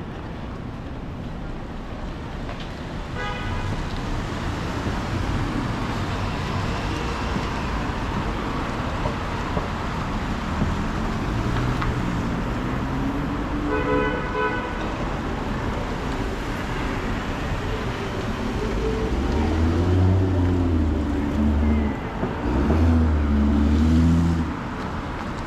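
City street traffic noise, with two short car-horn toots about 3 seconds and 14 seconds in. Near the end a louder, lower sound with a wavering pitch comes in.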